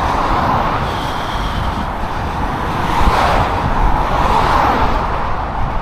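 Road traffic noise: cars going by on the road, a steady rush that swells about three times as vehicles pass.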